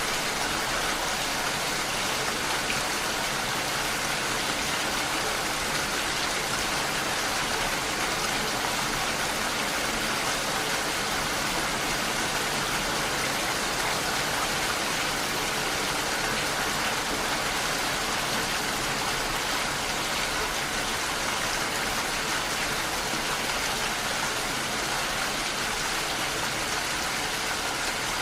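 Steady rain striking window glass: an even, unbroken patter of drops.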